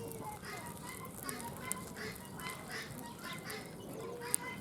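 Domestic fowl calling in short notes, repeating several times a second, with a sharp click about four seconds in.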